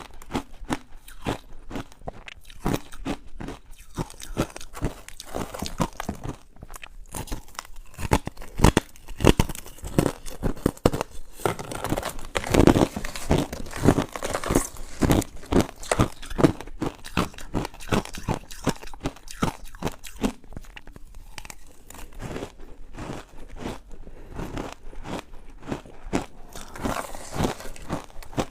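Ice being bitten and chewed close to the microphone: a dense run of crisp, irregular crunches and cracks.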